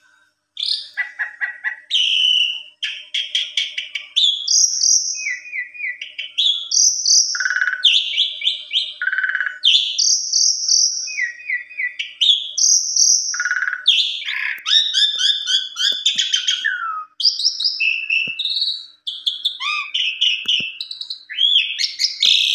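Asian pied starling (jalak suren) in full song: a long, near-continuous run of varied whistles, trills and chattering notes, packed with learned mimicked phrases (isian), broken by only a few short pauses.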